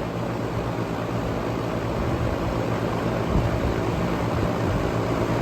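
Outdoor condensing unit of a split-system R-410A air conditioner running: a steady whoosh of the condenser fan over a low compressor hum.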